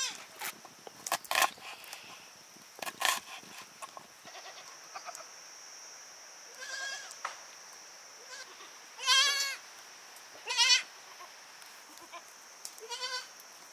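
Goats bleating: four quavering bleats in the second half, the one about nine seconds in the loudest. A few sharp knocks come earlier.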